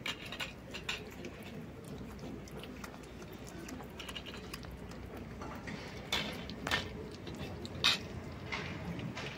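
Kittens and a cat chewing and smacking wet cat food from metal plates: a steady patter of small wet clicks, with a few sharper clicks about six to eight seconds in.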